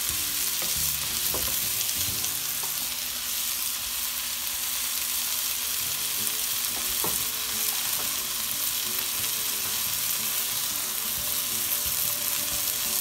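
String beans with garlic and onion sizzling steadily in a frying pan, a constant hiss as a splash of added water cooks off. A few faint clicks sound early on and again about halfway through.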